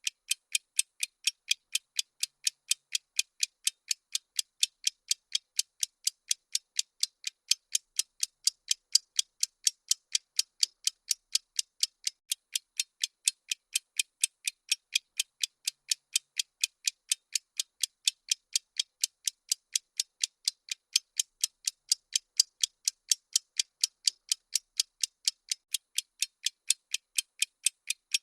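Bomb-countdown ticking sound effect: fast, even, sharp high-pitched clock ticks, one after another, counting down.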